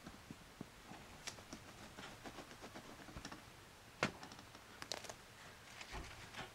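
Faint handling sounds of hands pressing a bread-stamping mold into a slice of bread: soft rustles and light clicks, with a sharper click about four seconds in and a few more close together near five seconds.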